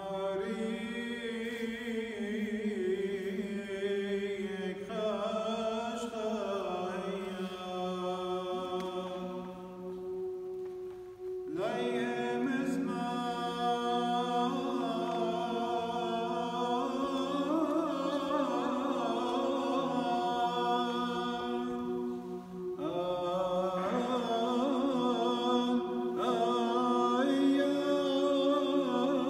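A man chanting a Syriac madrasha (a liturgical hymn) in Aramaic, solo, in long melodic phrases with short breaks about eleven and twenty-three seconds in.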